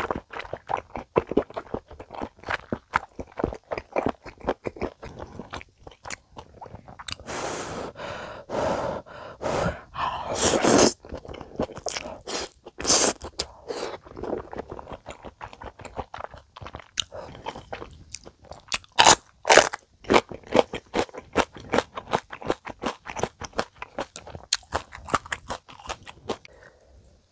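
Close-miked chewing of a mouthful of spicy stir-fried chicken dakgalbi with udon noodles and melted cheese: a dense run of short mouth clicks, with louder stretches about eight to eleven seconds in and again around nineteen seconds in.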